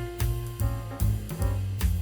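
Jazz music with a drum kit, a bass line that changes note every fraction of a second, and held instrument tones.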